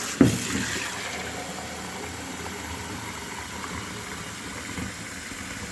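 Water running steadily from the tap into a one-litre container, flushing fresh water through a newly fitted Quooker limescale cartridge. There is a brief knock just after the start.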